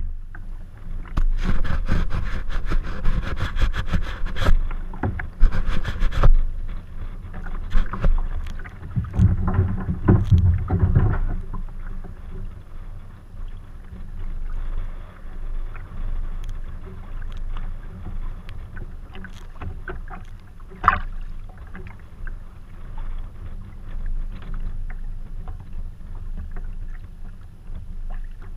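Choppy waves slapping and splashing against a fishing kayak's hull, with wind buffeting the microphone as a steady low rumble. A quick run of clicks and knocks fills the first six seconds, and a few single knocks come later.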